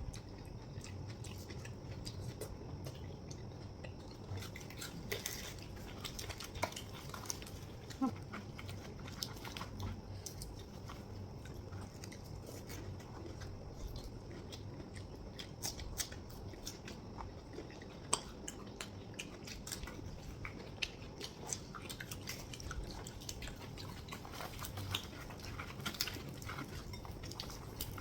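Chhole bhature (fried bread with chickpea curry) being eaten by two people: chewing and mouth sounds, with many small scattered clicks and clinks from plates and hands.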